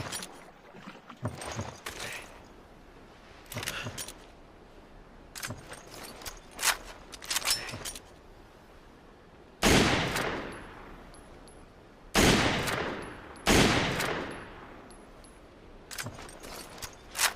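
Heckler & Koch PSG-1 7.62×51mm semi-automatic sniper rifle: groups of short metallic clicks of handling, then three loud shots a little over a second apart, each followed by a long fading echo, then more clicks near the end.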